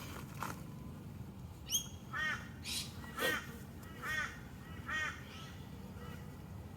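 A crow cawing, a series of about five short, arching caws spaced roughly half a second to a second apart.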